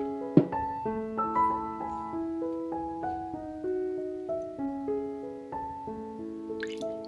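Background piano music: a slow melody of held notes, one after another. A single sharp click sounds about half a second in.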